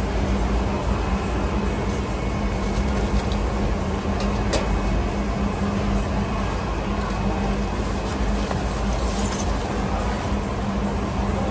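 Busy market background din: a steady wash of noise with a constant low hum underneath and a few faint clicks.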